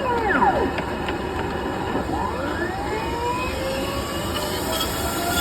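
Dryer vent cleaning equipment running with a steady whir, with squeals sliding down in pitch near the start and sliding up and down again from about two seconds in.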